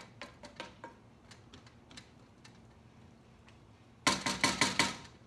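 Wooden spoon clicking and scraping against a frying pan as stir fry is tossed in sauce, then about six quick, loud taps of the spoon on the pan near the end, with the pan ringing.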